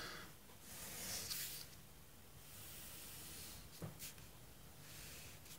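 Felt-tip marker drawing long strokes on paper: two faint scratchy hisses, each about a second long, with a light tap about four seconds in.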